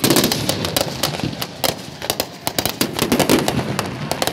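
Aerial fireworks bursting: a loud bang right at the start, then a rapid, uneven run of sharp cracks and pops.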